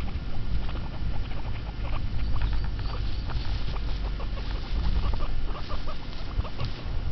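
Guinea pigs rustling through long grass: a dense run of short crackles and rustles over a steady low rumble.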